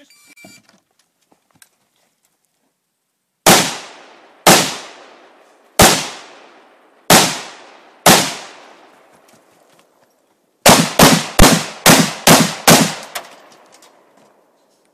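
Gunshots: after a few seconds of quiet, five shots about a second apart, then after a short pause a fast string of about eight shots. Each shot is sharp and loud with an echo trailing off behind it.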